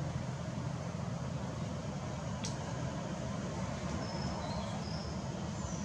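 Steady low outdoor rumble with a hiss above it, even in level throughout, with a single faint click about two and a half seconds in and a few brief, faint high chirps in the second half.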